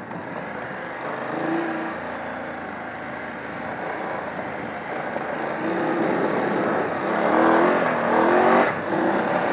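BMW F 850 GS Adventure's parallel-twin engine running off-road over a steady rush of wind and ground noise. Its revs rise briefly a couple of times, then climb and grow louder from about seven seconds in before dropping back near the end.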